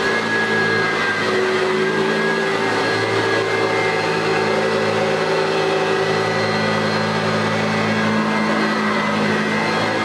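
1990 Eureka Model 1432 upright bag vacuum cleaner running steadily while it is pushed over carpet, its motor holding one steady pitch over a rushing of air.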